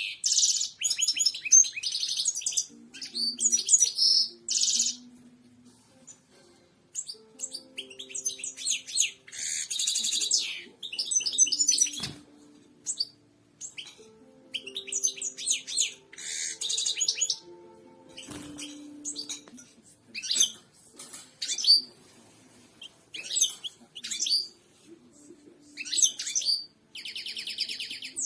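Goldfinch singing: fast twittering phrases of chirps, trills and buzzy notes, coming in bursts with short pauses between them. Two sharp clicks can be heard, about twelve and eighteen seconds in.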